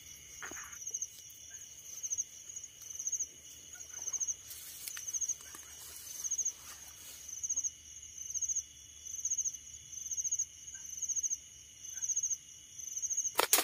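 A night insect chirps in short, high trills, about three every two seconds. Near the end there is one sharp snap as a slingshot is shot.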